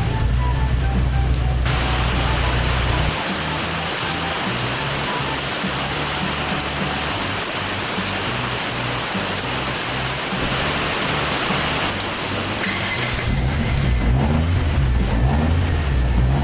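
Heavy rain pouring down, with its hiss loudest from about two seconds in until about thirteen seconds in. There is a low rumble underneath at the start and again near the end.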